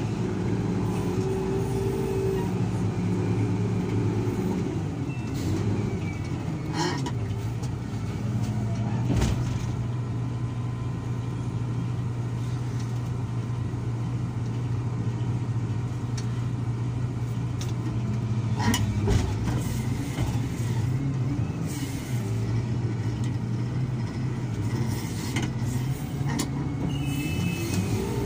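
SDLG wheel loader's diesel engine running, its pitch higher for the first few seconds and again near the end, settling lower in between. A few sharp knocks come through over it.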